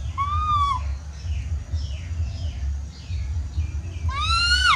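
Baby macaque coo-calling for its mother: two high, arching calls that rise and then fall, one just after the start and a louder one near the end, with fainter calls between. A steady low rumble runs underneath.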